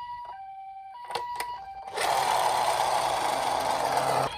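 Toy ambulance's electronic two-tone 'pi-po' siren, alternating a high and a low beep about every 0.6 s, with a few plastic clicks. About two seconds in, the siren gives way to a louder, steady whirring rattle that stops abruptly near the end.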